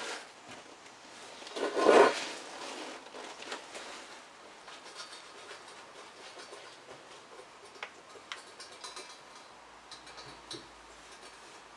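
Small ticks and light scrapes of a wooden stick working on a metal toaster plate, with one louder, brief scrape about two seconds in.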